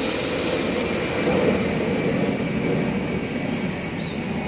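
Volkswagen Polo 1.2-litre petrol engine idling in the open engine bay, then switched off partway through as its oil pressure drops to zero. A steady noise carries on after the engine stops.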